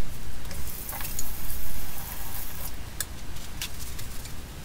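Water splashing and draining in a stainless steel kitchen sink as a glass 3D-printer bed plate is rinsed and lifted out, with a few light clicks of the glass against the sink.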